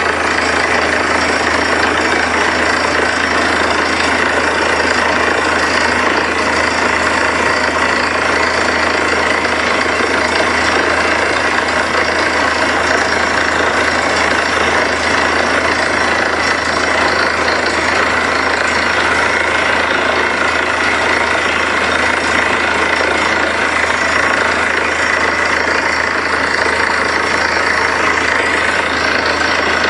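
Truck-mounted borewell drilling rig drilling steadily: its engine runs under load while compressed air blows rock dust out of the bore, a loud, unbroken machine din.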